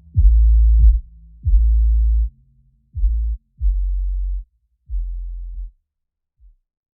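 Background music: a slow run of deep electronic bass notes, each opening with a quick downward slide. The notes grow quieter and stop near the end.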